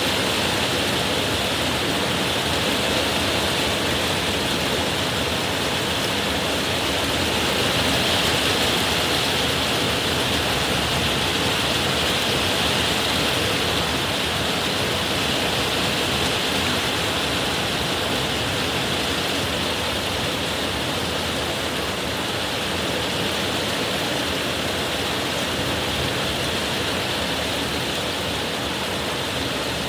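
Heavy rain pouring steadily in a summer downpour, a dense even hiss with no thunderclap in it.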